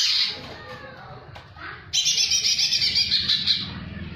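Male greater green leafbird (cucak hijau) singing: a short, sharp high call at the start, then about two seconds in a loud, rapid trill of evenly repeated high notes, roughly nine a second, lasting about a second and a half. The song is schooled on kingfisher (tengkek) calls.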